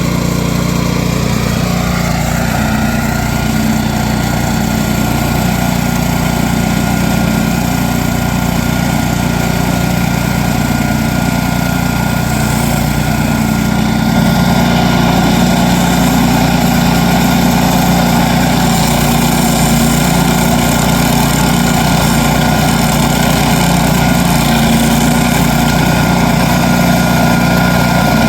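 Gitendo stump grinder's 13.5 hp Briggs & Stratton petrol engine running steadily, getting a little louder about halfway through.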